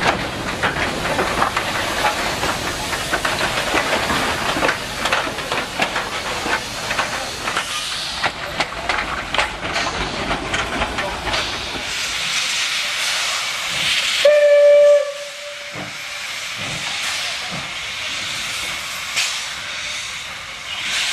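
Steam locomotive running past with chuffs and clanks, then a steady hiss of steam. About two-thirds of the way in, a steam whistle blows one steady note for about a second and a half, the loudest sound, and the steam hiss goes on afterwards.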